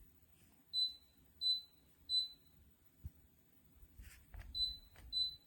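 Electric fireplace heater's control unit beeping five times as remote buttons are pressed: three short high beeps about 0.7 s apart, then, after a few soft clicks, two more near the end.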